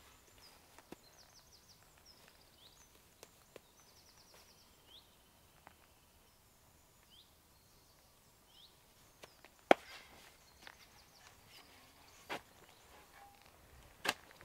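Small birds chirping with short high trills and rising calls, over the soft rustle and clicks of work gloves being pulled on. A single sharp click stands out a little past halfway, and a spade strikes into the soil near the end.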